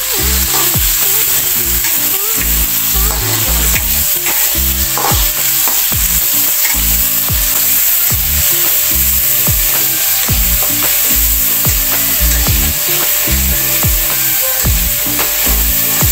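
Sliced ingredients sizzling in hot oil in a pan as they are sautéed until fragrant, stirred steadily with repeated clicks of the utensil against the pan.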